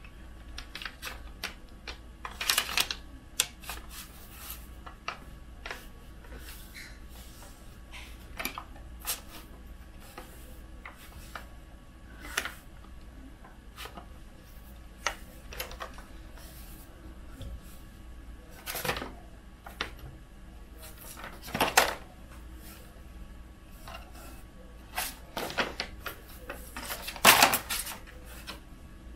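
Paper backing being peeled off a self-adhesive Keenovo silicone heater pad while hands press and smooth the pad onto an aluminium bed plate: scattered crackles and rustles, with a few louder crinkles of the backing paper.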